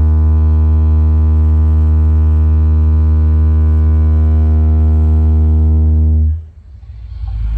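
A single deep bass tone held steady through a DJ sound system's speakers during a bass check, loud and unchanging, cutting off sharply about six seconds in. A low rumble builds again just before the end.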